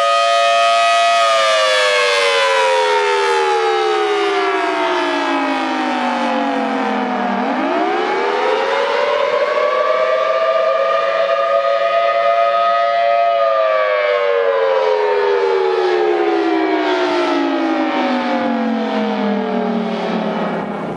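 Federal Signal Thunderbolt 1000T tornado siren sounding a wail, the attack signal: it holds a high note for about a second, falls slowly for about six seconds, climbs back and holds for a few seconds, then falls again and winds down near the end.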